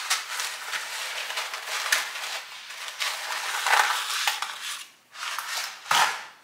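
A cardboard spaghetti box is torn open and dry spaghetti rustles and clatters against it as a bundle is pulled out, with scattered sharp clicks. A short, loud crack comes near the end.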